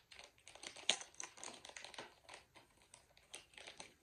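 Thin clear plastic packaging crinkling and crackling in the hands as a small keychain is handled in its sleeve: quick irregular crackles, the sharpest about a second in.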